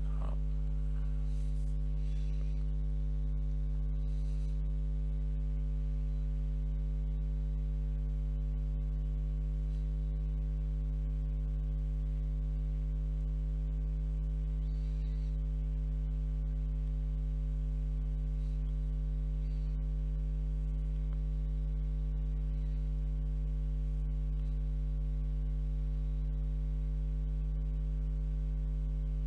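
Steady electrical mains hum: a constant low buzz with a stack of overtones.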